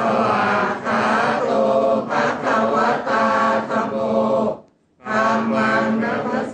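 Buddhist blessing chant by a male voice, held on a steady reciting tone, with one short break for breath about three-quarters of the way through.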